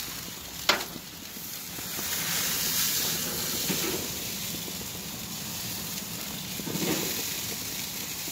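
Striped bass sizzling on a barbecue grill, a steady hiss, with one sharp click about a second in.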